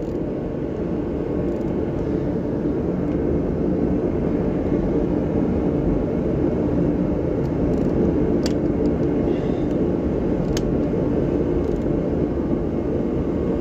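A steady low rumble throughout, with two light, sharp clicks in the second half.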